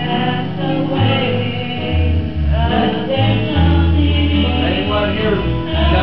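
Live gospel song: a woman sings lead into a microphone over strummed acoustic guitar and other plucked strings, with a deep bass line that moves every second or so.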